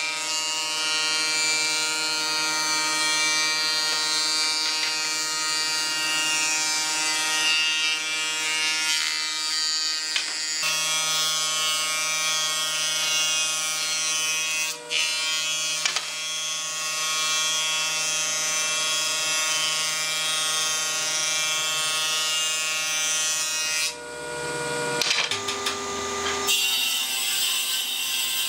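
Thickness planer on a combination woodworking machine running while an old board is fed through, its cutterhead shaving the wood with a dense hiss over the motor's steady hum. About 24 seconds in the sound breaks off and changes to a different steady machine tone.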